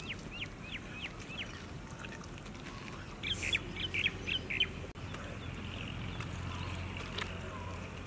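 A bird calling: runs of short, sharp chirps that each drop in pitch, about four a second, with a louder burst of them from about three to four and a half seconds in.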